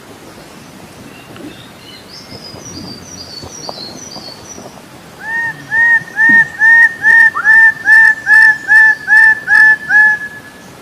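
Bird calling: a run of about a dozen loud, identical honk-like notes, each rising and falling, about two and a half a second, starting about five seconds in and stopping near the end. Faint high chirps of another bird come before it.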